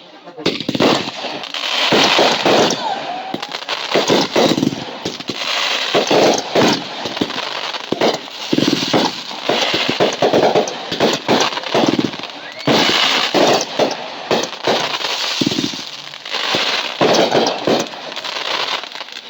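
Fireworks going off in quick, irregular succession: loud bangs mixed with crackling.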